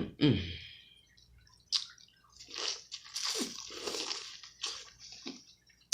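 Close-up wet chewing, smacking and slurping of sauce-covered seafood, in a run of irregular squishy mouthfuls.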